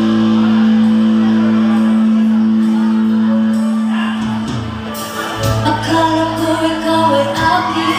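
Live band music: a sustained chord on bass and guitar rings for about four seconds, dips, then the band comes back in with a woman singing into a microphone near the end.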